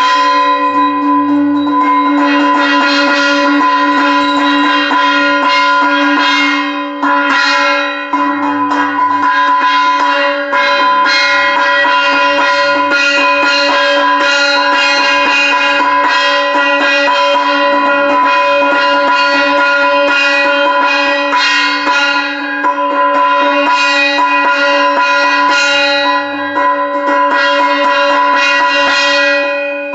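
Bell ringing rapidly and without a break, with steady ringing tones, over music with a soft drum beat, as at a puja aarti.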